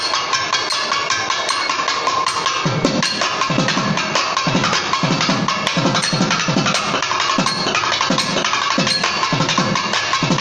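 Thavil drum played in a fast passage: a dense run of sharp cracking strokes, joined about three seconds in by deep booming strokes on the bass head, about two or three a second.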